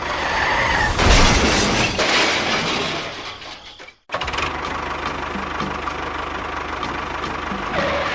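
A loud noisy rush that fades away over a few seconds, then, after a sudden cut, a small engine running steadily with a fine, even pulse.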